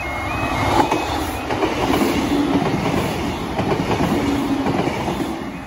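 Class 156 diesel multiple unit running past close by, its noise building about half a second in and easing near the end. The level crossing's two-tone alarm sounds behind it at the start.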